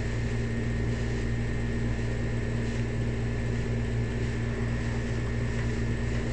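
A steady, unchanging droning hum with a constant rushing noise under it.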